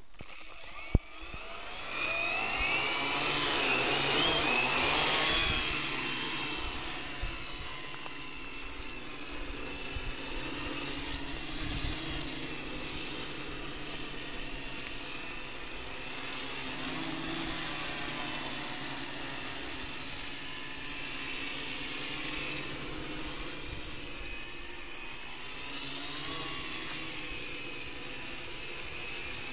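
Four RCTimer 2830 1000Kv brushless motors with 10x4.5 props on a homemade H-frame quadcopter whining as they spin up about two seconds in, loudest around four seconds in, then a steady hovering whine whose pitch shifts with the throttle. A brief high beep and a knock in the first second.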